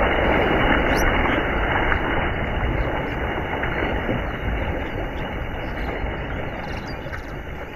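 Shallow river water splashing and churning as someone wades and thrusts a bamboo kotch fishing spear through it: a steady rushing noise that slowly fades.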